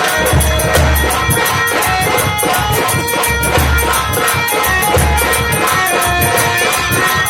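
Nautanki folk-theatre music: deep drum strokes recurring about once a second under a fast, even jingling of small percussion, with sustained melodic lines above.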